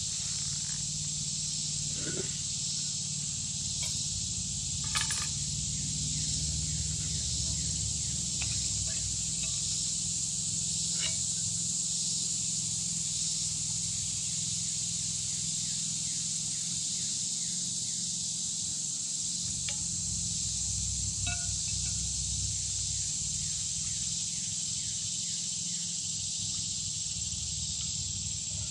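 A steady, high-pitched drone from a chorus of insects in the woods, with a few light knocks and clinks as a skillet and small stove are handled.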